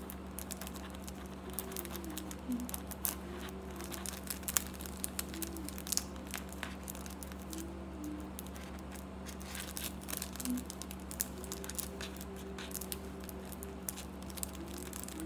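Thin clear plastic sheet crinkling and crackling as it is folded and creased by hand: many small irregular crackles, over a steady low hum.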